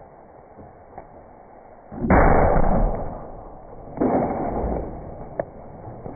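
Two loud crashing impacts about two seconds apart, each trailing off over about a second.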